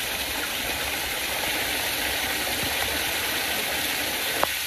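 Steady rushing of running water as a small stream pours down into a flooded earth den. A single sharp tick comes near the end.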